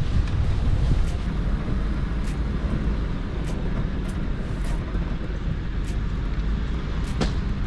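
Off-road vehicle driving slowly along a dirt bush track, a steady low engine and tyre rumble with scattered sharp clicks and knocks from the track, the clearest one near the end.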